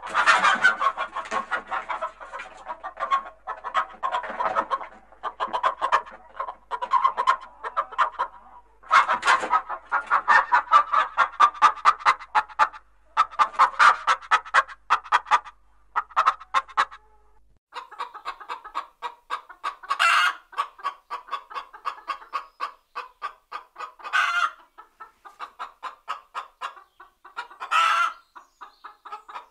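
Several hens clucking in a flurry of short, rapid calls, with a few louder squawks in the second half. Just past halfway, the sound cuts to another recording, and a low hum drops out.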